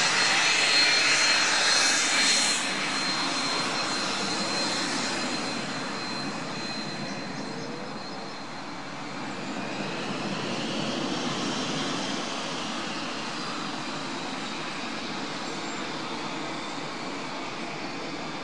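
Cessna Citation S550 business jet taxiing, its twin Pratt & Whitney JT15D turbofans running with a steady jet whine. A thin high tone is plain at first; the sound drops somewhat about two and a half seconds in and swells again briefly near the middle.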